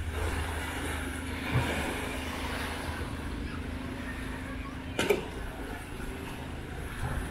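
An engine running steadily with a low hum. A sharp click or knock comes about five seconds in.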